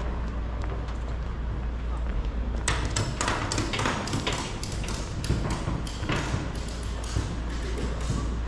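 City street ambience: passers-by talking over a steady low rumble, with a run of sharp clicks and knocks starting a little under three seconds in.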